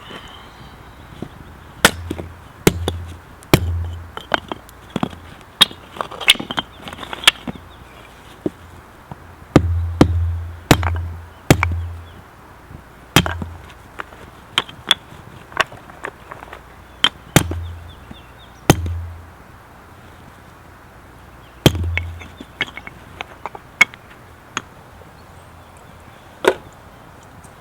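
Repeated chopping strikes: sharp knocks at uneven intervals, many landing with a short dull thud, in clusters with brief pauses between.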